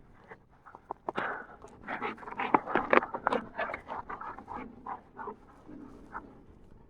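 Hunting dog panting hard and fast after a retrieve, quick rhythmic breaths close by.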